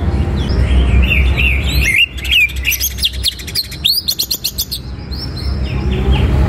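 Greater green leafbird (cucak ijo) singing a fast, varied song of chirps, rapid trills and whistled glides, the full 'tembakan' and 'isian' style. A low background rumble underlies it, dropping away for a few seconds in the middle.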